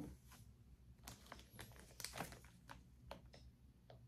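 Near silence with faint, scattered small clicks and light rustling as jewelry pieces are handled, the most distinct click about two seconds in.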